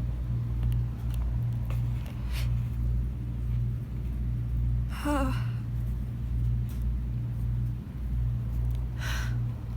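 A person's breathing while holding back a sneeze: a short voiced catch in the breath about halfway through and a sharp inhale near the end. A steady low hum runs underneath throughout.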